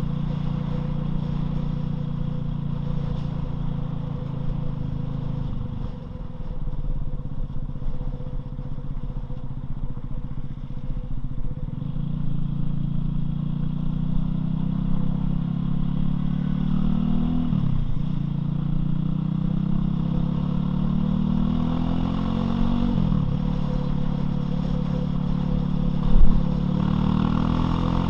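Loncin LX250-12C motorcycle engine running under way, its revs climbing and then dropping sharply several times as the rider shifts gears. A short loud knock sounds near the end.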